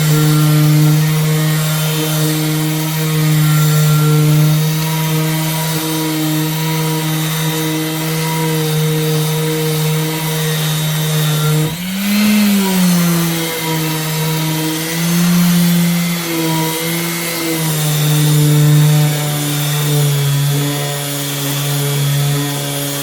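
Power sander running with 240-grit paper against an aluminium wheel rim, a steady motor hum with a gritty rasp, sanding out curb rash. About halfway through the pitch rises briefly and drops back, as the load comes off and on, and it wavers once more a few seconds later.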